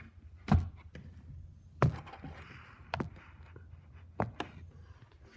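A handful of sharp knocks and clicks, the two loudest about half a second and two seconds in and a quick pair near the end, from hands and feet at work while turning off a garage door opener's light.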